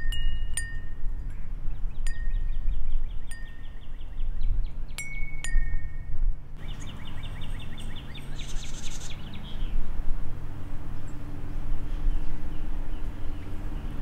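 Wind chime struck lightly a few times, its notes ringing on, with birds trilling. About six and a half seconds in the chimes stop and a fast bird trill carries on. A low rumble runs underneath throughout.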